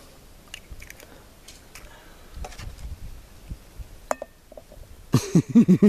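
Eggs being cracked into a frying pan over a campfire: soft taps and small shell cracks, then one sharp clink against the pan about four seconds in. Near the end a man's voice breaks in with quick, rhythmic laughter.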